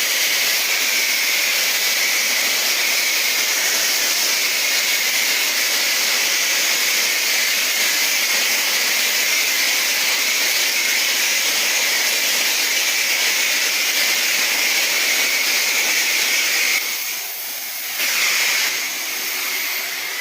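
Car wash pressure washer wand spraying water in a steady hiss as it washes off mud. The spray drops away for about a second near the end, then comes back a little quieter.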